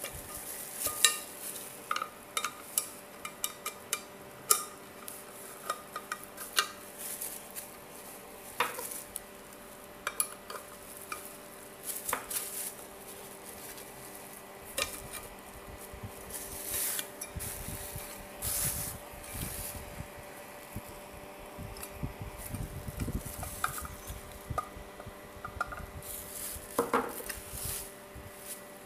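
Irregular clinks and knocks of a frying pan and its metal-collared handle being handled and fitted together, some with a short metallic ring, with bubble wrap rustling underneath.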